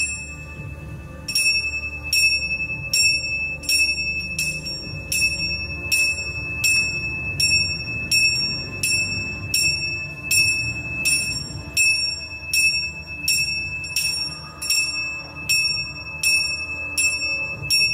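A small bell struck over and over in a steady rhythm, about one and a half strikes a second, starting a little over a second in, with a short bright ring after each strike.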